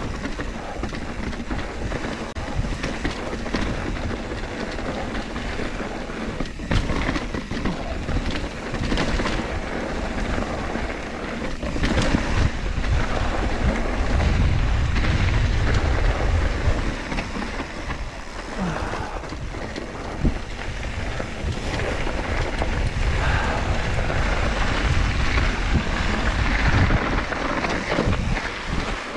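Mountain bike running fast down a dirt and rock trail: tyres rolling and crunching over the ground and the bike rattling over bumps, under steady wind rumble on the action camera's microphone that grows louder about halfway through and again near the end.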